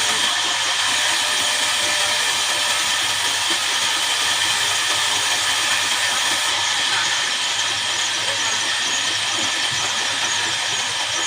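Horizontal band sawmill running steadily as its blade cuts through a jackfruit log: an even, unbroken hiss with a low machine hum beneath.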